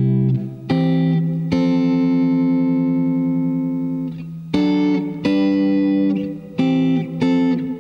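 Clean electric guitar (Fender Stratocaster) playing open-voiced triads, moving back and forth between two chord shapes, a C chord and an F chord. About seven chords are struck, one of them left ringing for about two and a half seconds a second and a half in.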